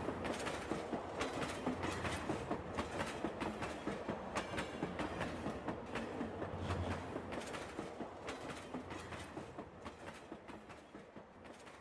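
Passenger train rolling past on the line beside the alley, its wheels clacking over the rail joints over a steady rumble, fading as it moves away.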